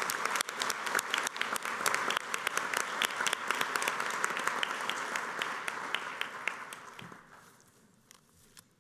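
Audience applauding, with many hands clapping at once; the applause dies away about seven seconds in.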